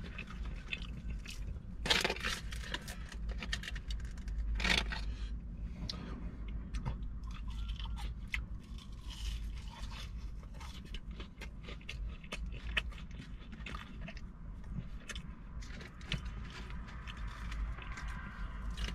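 Close-miked eating: chewing and crunching on fries dipped in sauce, with wet mouth clicks and two louder crunches about two and five seconds in, over a steady low rumble.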